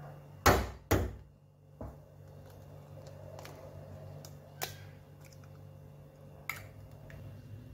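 A raw egg knocked twice sharply against a hard edge to crack the shell, with a lighter knock after. Fainter clicks follow as the shell is pulled apart and the egg drops out.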